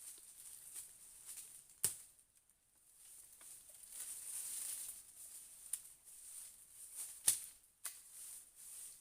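A steady high-pitched chirr of forest insects such as crickets, with rustling of dry leaf litter and several sharp snaps or clicks, the loudest about two seconds in and about seven seconds in.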